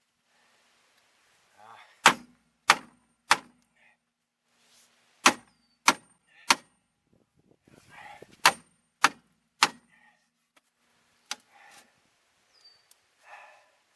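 Hammer blows on the seized rear brake drum of a 2002 Chevy Malibu, struck to break it free of rust. There are three quick sets of three hard metal-on-metal strikes, each with a short ring, then one lighter strike near the end.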